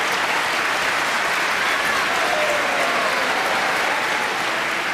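Large indoor arena audience applauding steadily.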